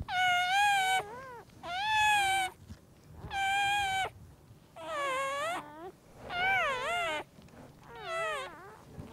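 A newborn puppy crying: six high, wavering, meow-like cries, each just under a second long, about one every second and a half.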